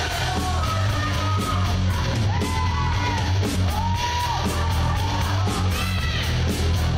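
Wrestling entrance music: a rock song with shouted vocals over a steady heavy bass and drum beat, kicking in just before this moment.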